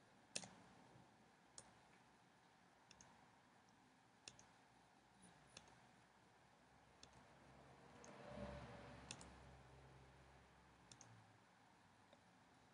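Near silence broken by about a dozen faint, scattered clicks of a computer mouse button advancing the slide's bullet points, the loudest less than half a second in.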